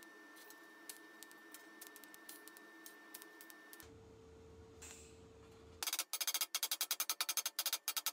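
TIG welding arc on sheet steel, starting about two-thirds of the way through as a loud rapid pulsing crackle, about eight to ten pulses a second. Before it, only a faint steady high hum with light ticks.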